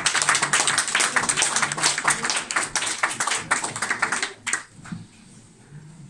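Audience applauding, a small crowd clapping hands, dying away about four and a half seconds in.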